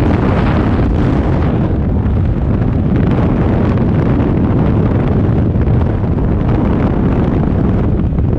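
Loud, steady rush of wind and engine noise at the open door of a jump plane in flight, buffeting the microphone.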